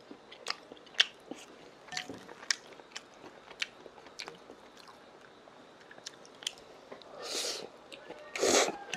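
A man eating stir-fried udon noodles with chopsticks: close chewing with sharp clicks at an uneven pace, and two short slurps of noodles near the end.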